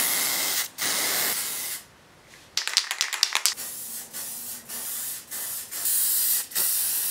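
Montana 94 aerosol spray paint hissing from the can in several short bursts, with brief stops between them and a quick run of clicks about a third of the way through.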